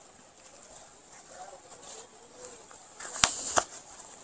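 Plastic packing around a folded saree crackling and rustling as it is picked up and handled, in a short cluster of sharp crinkles about three seconds in, over quiet room tone.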